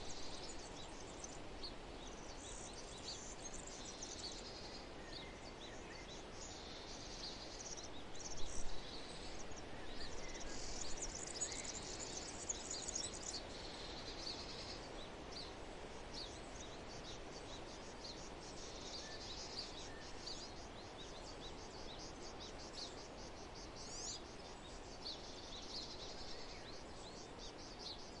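Nature soundscape: birds chirping and twittering in quick high notes over a steady background hiss, with a few louder chirps about a third of the way in.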